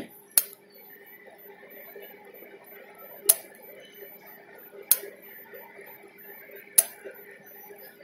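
A small 6 V PCB relay (Leone SC5-S-DC6V) clicking as it switches, four sharp clicks a second or two apart, each one the relay toggling as an infrared remote switch circuit changes state.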